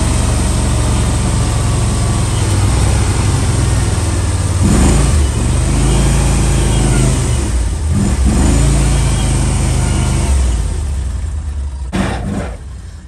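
Argo amphibious ATV's engine running under load while it drives through floodwater. The engine note swells and shifts about five and eight seconds in. It falls away about a second before the end.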